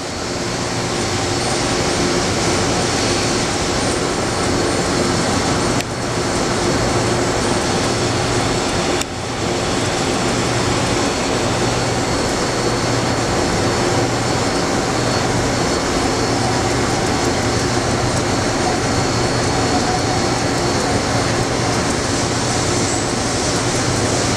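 EDM DrillMate 430I small-hole EDM drill burning through a block with a 1 mm electrode in a stable burn: a steady hiss with hum tones from the machine and its high-pressure flushing pump. The sound dips briefly twice, about six and nine seconds in.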